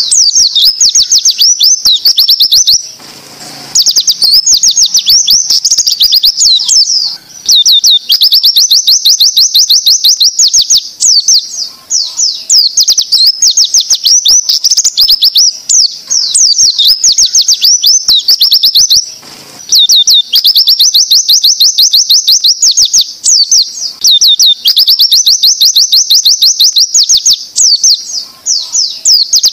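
White-eye (pleci) song in the 'zipper' style: long runs of rapid, high, sweeping notes fired in quick succession, broken twice by short pauses. It is a recorded master song for training caged white-eyes.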